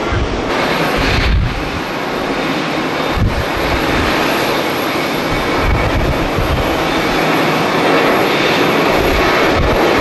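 Jet airliner engines running with a steady, loud noise, mixed with gusty low rumbling from strong wind buffeting the microphone.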